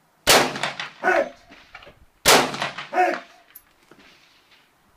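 Two rifle shots about two seconds apart, each followed about three-quarters of a second later by the ringing clang of a distant steel target being hit.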